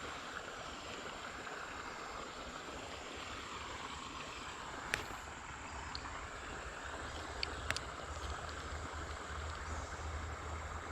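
Shallow creek water running steadily over rocks, with a few faint short clicks about halfway through and again a little later.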